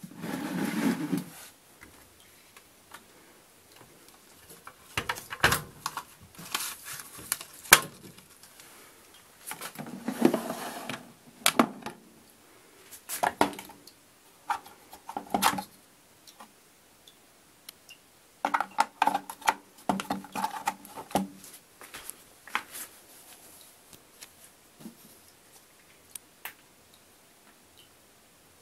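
Scattered clicks, knocks and short scrapes of plastic and metal parts of a Wiatka washing machine being handled, its detergent drawer among them, coming in uneven bursts that thin out near the end.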